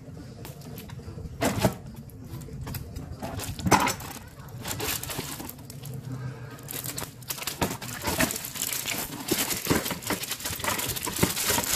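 Plastic water-filter cartridges being handled in a cardboard box: rustling and crinkling of plastic wrap and cardboard with occasional knocks, busiest and densest in the last five seconds.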